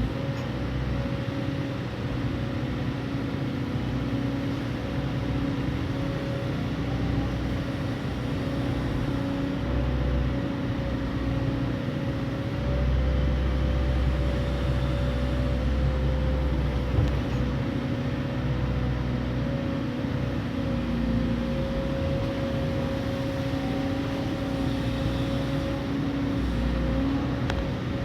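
Hydraulic excavator's diesel engine running steadily, its low rumble growing heavier for a few seconds in the middle.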